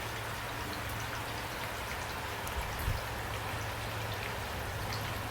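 Steady rain falling, an even hiss with scattered drop ticks, over a low hum, with one soft low thud a little under three seconds in.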